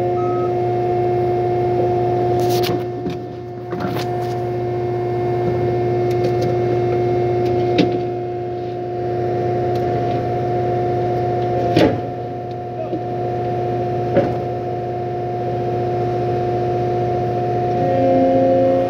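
Skid-steer loader running steadily from inside the cab: a constant engine hum with a steady whine over it. A few sharp knocks sound, around a third of the way in, a couple more in the middle and one about three quarters through.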